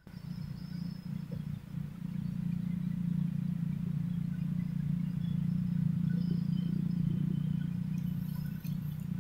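A steady engine drone that grows louder over the first few seconds and then holds, with a few faint clicks near the end.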